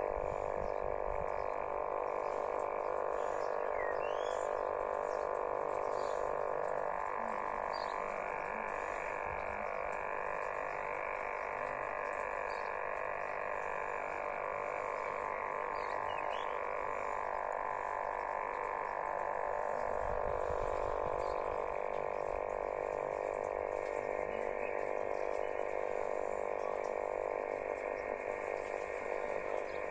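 Yaesu portable HF/VHF/UHF transceiver's speaker giving out steady interference noise on the 6 m band, tuned to 50.300 MHz upper sideband with the S-meter near S8: man-made interference (QRM) covering the band. The noise has no highs, only the narrow range a sideband receiver passes.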